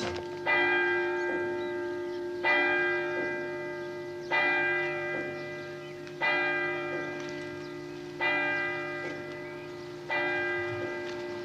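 A church bell tolling slowly: six strokes about two seconds apart, each ringing on and fading before the next.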